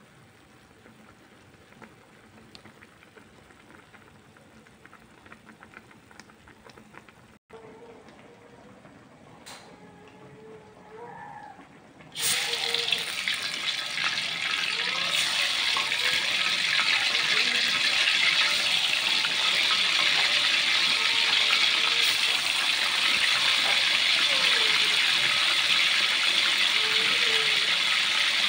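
Tofu frying in hot oil in a wok: a loud, steady sizzle that starts suddenly about twelve seconds in as the pieces go into the oil. Before it there is only a faint simmer from a pan of coconut-milk curry.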